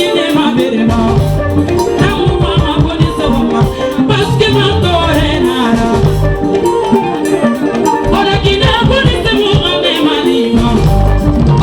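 Loud live music with a sung vocal over a steady percussive beat and a shaking rattle.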